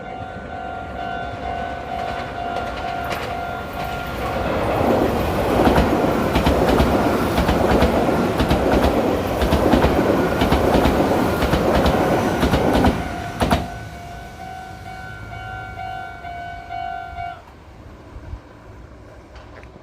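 Level-crossing warning bell ringing in a steady pulsing alarm. About four seconds in, a Meitetsu electric train running through the crossing drowns it out, wheels clicking over the rail joints. Once the train has passed, the bell is heard again and stops about seventeen seconds in.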